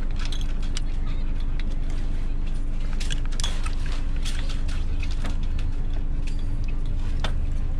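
Scattered light clicks and rattles of rope and rigging hardware being handled at a catamaran's mast base, over a steady low rumble with a faint hum.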